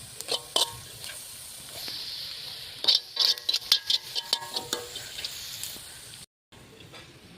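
Bitter gourd slices sizzling as they fry in oil, with a metal spatula clinking and scraping against the pan as they are stirred; the clinks come thick and fast in the middle. The sound cuts out briefly near the end.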